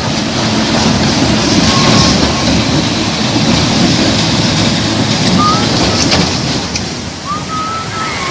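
Steady loud rushing of river water churning around a tanker semi-truck's wheels as it drives through a flooded ford, with a few short high calls.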